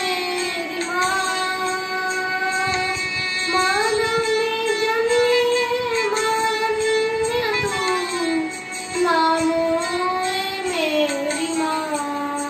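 A boy singing a Hindi Marian hymn solo, holding long notes that slide up and down between them.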